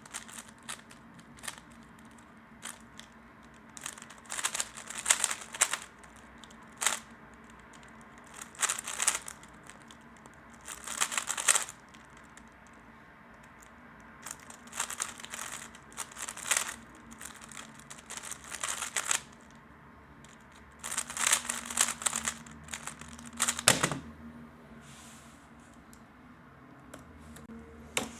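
3x3 Rubik's cube being turned quickly by hand: bursts of rapid plastic clicking and rattling, a second or two long, with short pauses between them.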